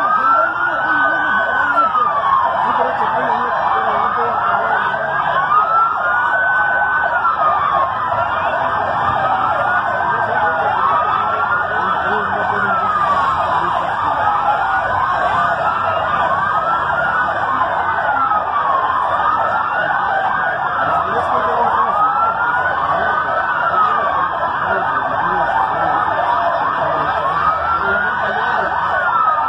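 Several emergency-vehicle sirens wailing at once, each sweeping slowly up and down in pitch, their cycles overlapping out of step.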